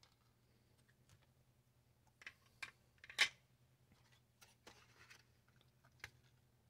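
Handling noise of a vintage TV circuit board and tools on a paper-covered work surface: a few sharp clicks and knocks, the loudest a little past three seconds, a brief rustle as the board is turned over, and a last click as it is set down near the end.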